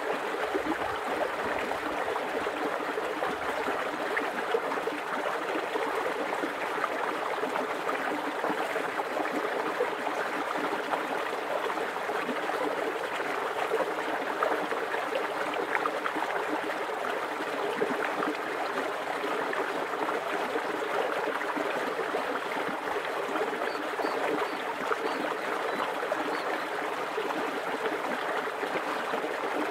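Shallow creek flowing fast, a steady rippling babble of running water.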